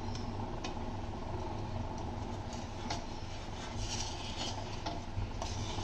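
A wooden spatula scraping and tapping on an iron dosa griddle as toasting sandwiches are turned over, a few short scrapes and clicks over a steady low hum and hiss.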